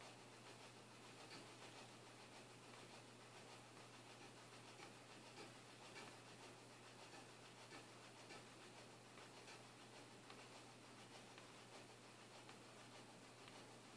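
Near silence: faint, even hiss with a steady low hum.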